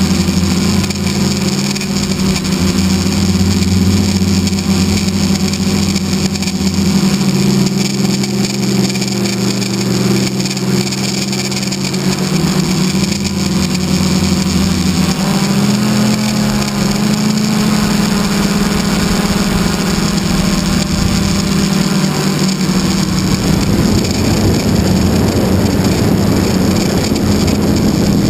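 RC model airplane's engine and propeller droning as heard from a camera on board the plane, the pitch stepping up and down several times with throttle changes, over steady wind rush. In the last few seconds the deepest part of the drone drops away and the wind rush grows louder as the plane comes down low over the field.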